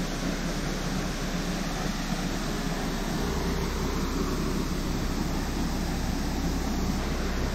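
Steady rushing of a waterfall pouring into a pool, with a low rumble joining about three seconds in.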